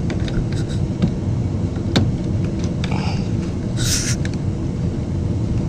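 Steady low rumble under small clicks and a short rustle about four seconds in, from hands handling the washer's plastic valve fittings and hoses; one sharper click about two seconds in.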